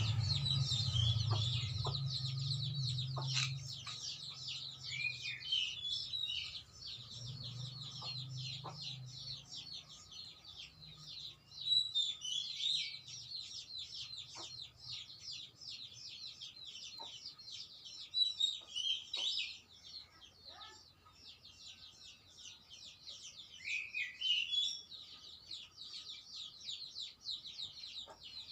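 Birds chirping rapidly and without a break, with chickens clucking. A few louder chirps that drop in pitch stand out now and then.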